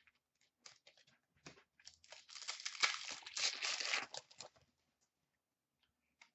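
A hockey-card pack wrapper being torn open and crinkled by hand: a few small crackles at first, then a dense run of crinkling and tearing for about two and a half seconds.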